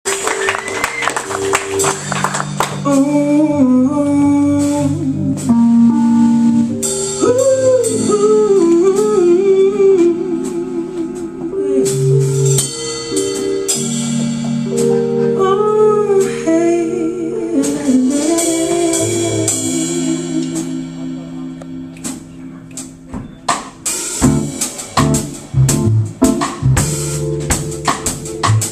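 Live jazz band playing: a woman sings with a wavering vibrato over keyboard chords and a drum kit. Near the end the singing stops and sharp drum hits come forward over quieter playing.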